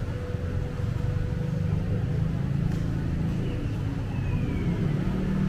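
Steady low rumble of a covered market hall's ambience, with a faint steady hum and a brief faint falling whistle about four seconds in.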